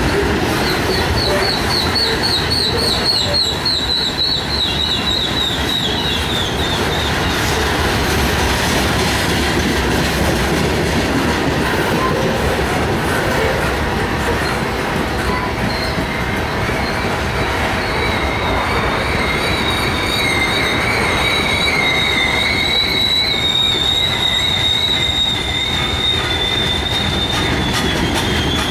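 Freight train of covered hopper cars rolling past at close range: a steady rumble of steel wheels on the rails, with a wavering high wheel squeal in the first several seconds and again from about halfway to near the end.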